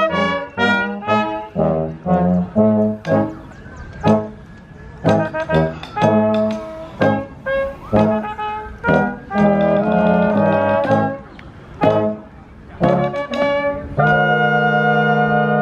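Small brass band of cornets, trumpets, baritone horns and tubas playing a tune in short, detached notes. It holds one long chord near the end.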